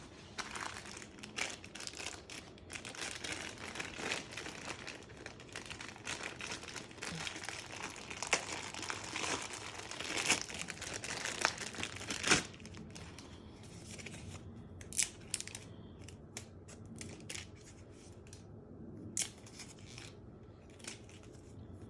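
Packaging being unwrapped and handled: dense crinkling and rustling for about the first twelve seconds, ending in a sharp snap, then quieter scattered clicks and rustles.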